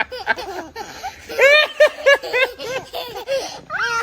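A small child laughing in a run of short, high-pitched giggles, louder about a second and a half in, with a rising squeal near the end.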